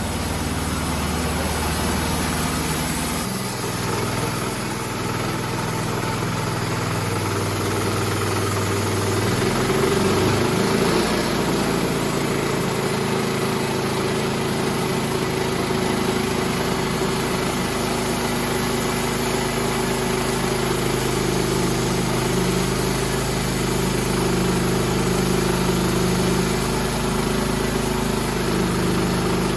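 An engine running steadily, its speed stepping up about three seconds in and rising again around ten seconds in, then holding steady.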